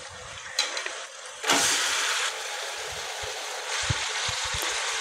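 Yogurt-marinated chicken pouring into hot oil and masala in a steel kadhai and sizzling: the hiss jumps up about a second and a half in as the chicken hits the pan, then keeps on steadily, with a few soft knocks near the end.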